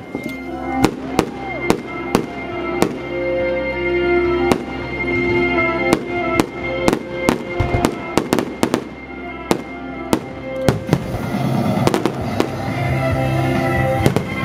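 Fireworks shells bursting, a long run of sharp bangs that come thickest in the middle, over music with sustained notes.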